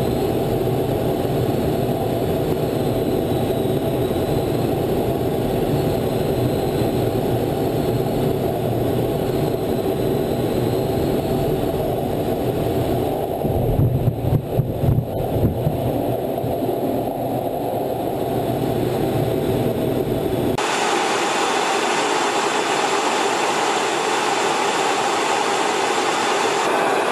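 Steady jet engine and airflow noise inside a fighter cockpit during a carrier approach, broken about halfway through by a burst of heavy thuds and rattling as the jet touches down on the deck. About three-quarters of the way in the sound cuts to a different steady, hissing jet noise.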